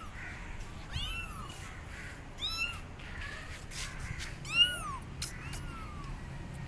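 Young kittens meowing again and again: about six short, high calls that rise and fall in pitch, the loudest about two-thirds in. These are the loud calls of abandoned kittens crying for their mother.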